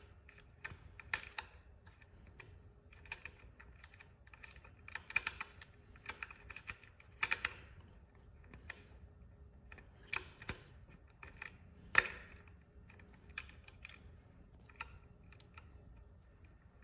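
Irregular small metal clicks and clinks as a nut and bolt on the motorcycle's ignition coil mount are worked loose by hand, with the loudest click about twelve seconds in.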